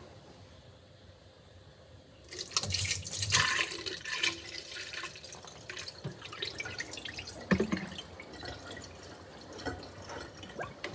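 Orange juice pouring and splashing out of a plastic bottle into a small plastic model toilet, starting about two seconds in and coming in uneven gushes and drips after that. A single knock about halfway through.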